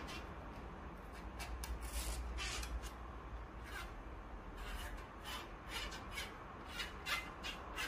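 Faint, intermittent rubbing with a few short scratchy strokes: fingers working lubricating grease while greasing a 3D printer's Z-axis lead screw.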